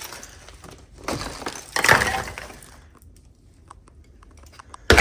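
Crunching and scraping of footsteps over broken brick and debris, in a longer burst about a second in and a sharp one near the end, with small clicks of grit between.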